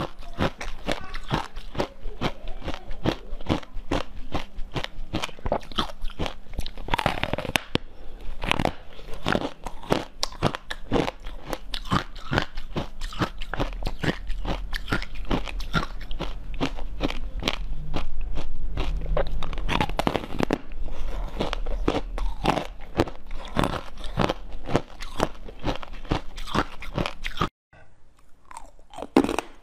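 Close crunching and chewing of hard, brittle frozen food: dense crisp cracks as pieces of icy pink discs are bitten off and ground between the teeth. It cuts off suddenly near the end and resumes fainter as chunks of coloured ice are chewed.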